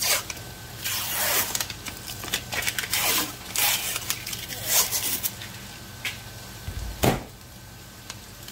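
Paper label being torn and peeled off a cardboard tube of refrigerated biscuit dough, a series of short tearing rustles, then one sharp pop about seven seconds in as the pressurised tube bursts open along its seam.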